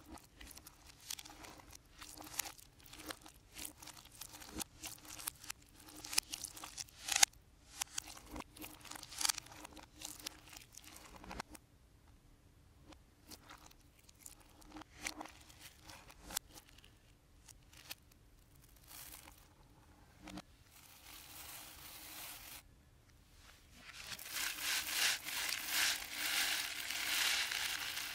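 Clear slime loaded with Nerds candy being squished and kneaded by hand, making many small sticky pops and crackles, then quieter, sparser crackles as it is stretched. Near the end, Rainbow Nerds candy pours from its cardboard box onto the slime in a steady, louder rush.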